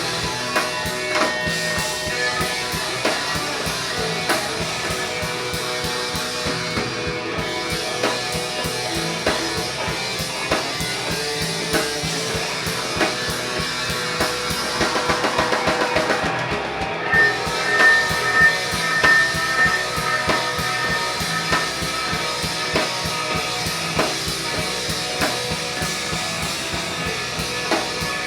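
Instrumental rock music: drum kit and distorted guitars playing without vocals, with a fast drum roll about halfway through.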